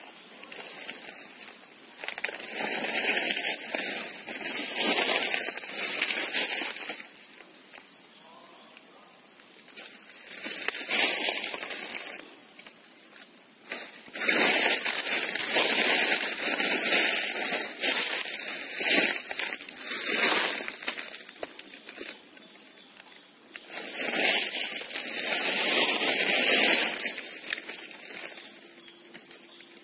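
Footsteps crunching through dry fallen teak leaves, in four stretches of a few seconds with quieter pauses between.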